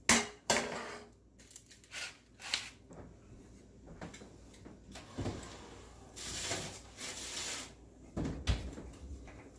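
A foil-lined sheet pan being lifted and slid into an oven, with the oven door handled: a series of sharp clicks and knocks, a longer rustling scrape past the middle as the pan goes onto the rack, and a low thump near the end.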